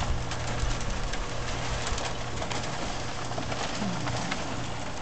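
Motorized worm-casting screener running steadily as it sifts vermicompost: a low, even hum under a steady hiss of material tumbling through the screen, with scattered light ticks.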